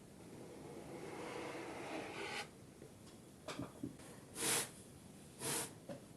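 Kinetic sand being worked: a soft scraping rub for about two seconds, then a few small clicks and two short scraping swishes about a second apart.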